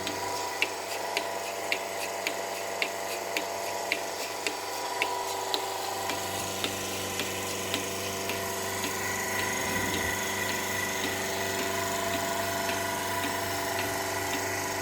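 A motor-driven machine running with a steady hum, and a sharp regular click about twice a second that fades about halfway through.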